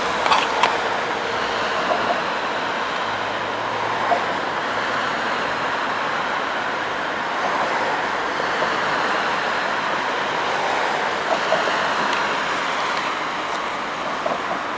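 Steady rumble of road traffic and railway-station ambience, with a few faint clicks.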